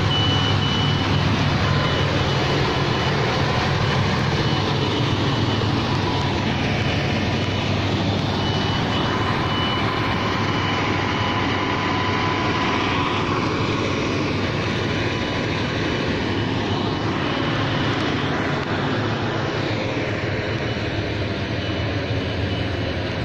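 Diesel semi-tractor hauling a loaded shipping container, its engine running steadily as it moves slowly close by. The sound eases off slightly toward the end.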